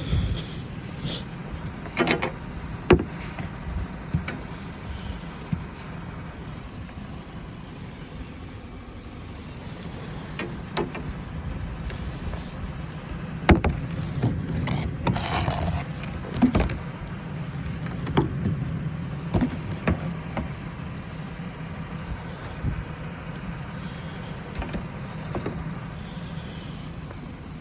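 A motor vehicle's engine running steadily, with scattered knocks and short scraping noises over it.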